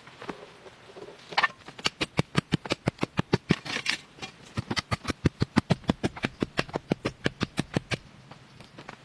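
Rapid, even knocking, about five or six sharp strokes a second, starting about a second and a half in, with a brief pause around four seconds and stopping near the end.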